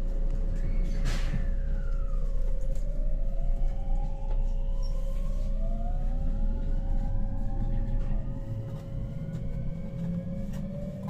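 Electric multiple-unit train pulling away from a station: the traction motors' inverter whine climbs in several parallel pitches as it gathers speed, over a low running rumble with a steady hum. A few sharp clicks sound from the wheels crossing rail joints.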